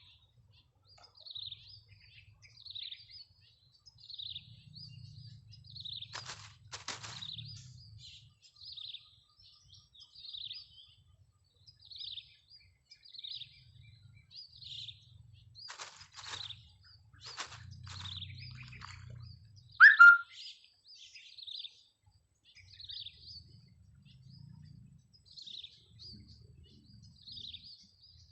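A bird repeating a short chirp about every one and a half seconds. Two brief bursts of clicks come a third and a half of the way through, and about two-thirds in there is one short, loud squeak falling in pitch, the loudest sound here.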